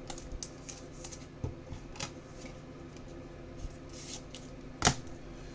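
Trading cards being handled: light scattered rustles and clicks, with one sharper click about five seconds in.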